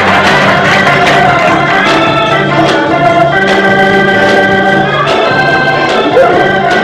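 Organ music playing held chords that change every second or two.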